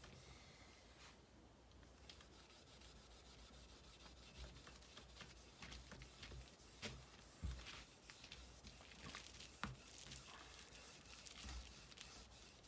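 Steel wool rubbed firmly back and forth over the back of a Squier Affinity Stratocaster neck, a faint scratchy rubbing that scuffs the gloss clear coat down to a satin feel. A few light knocks and ticks come in the second half.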